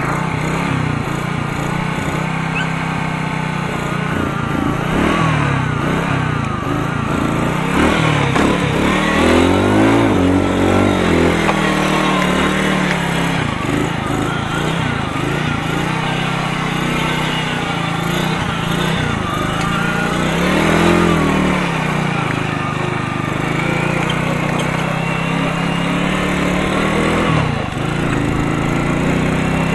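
Alpha moped's single-cylinder four-stroke engine running cold with the choke fully off. It revs up and drops back a couple of times as the bike pulls away and changes up through the gears.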